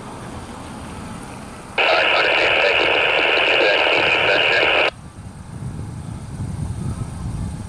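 A scanner radio breaks squelch about two seconds in: a loud burst of radio static, about three seconds long, that cuts off suddenly. Road vehicles rumble over the grade crossing underneath, louder near the end.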